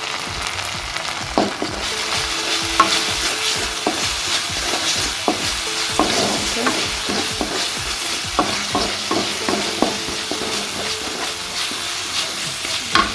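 Onion and spice masala frying and sizzling in a pan, stirred with a spatula that scrapes and taps against the pan many times.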